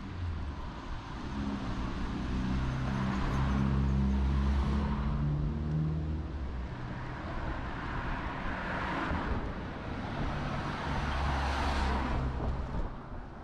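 Road traffic: cars driving past on the street, their tyre and engine noise swelling and fading twice, first around three to four seconds in and again around nine to twelve seconds in.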